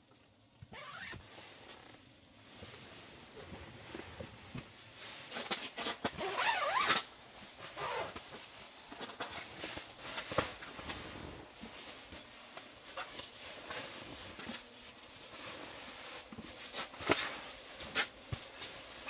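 Nylon shell of a down sleeping bag rustling and crinkling as it is handled, with a zipper being pulled. The loudest stretch of rustling comes about six to seven seconds in.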